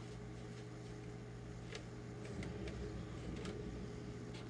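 Faint rubbing of a cloth rag worked over ABS plastic armor, pressing wet paint into its crevices, with a few light clicks, over a steady low hum.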